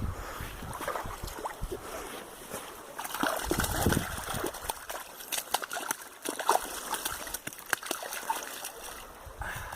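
Water splashing and trickling in many small, irregular splashes.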